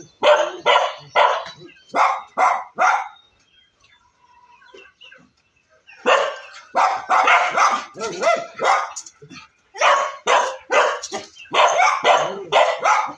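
Dogs barking in quick runs of short barks, with a lull of a few seconds in the middle, as they wait to be fed at their bowls.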